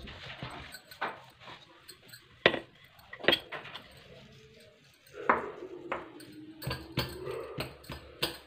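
Glass bangles clinking and hands patting and pressing naan dough on a floured marble worktop: a string of sharp, irregular clicks and taps. From about the middle a wavering steady tone runs under the clicks.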